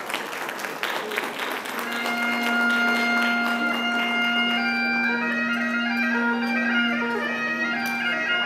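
Scottish country dance music: after a brief clatter of sharp sounds, a tune sets in about two seconds in over a long held low note.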